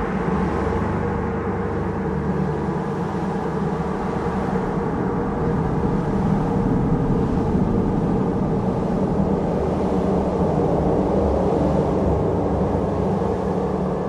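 Wind blowing, a steady low rushing noise that swells and eases slowly in gusts, a little stronger around the middle.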